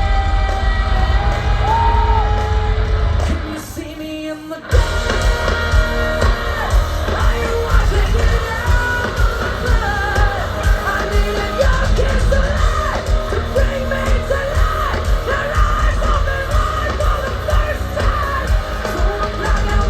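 Loud rock music with a singer, guitar and heavy beat. It drops away briefly about four seconds in, then comes back suddenly.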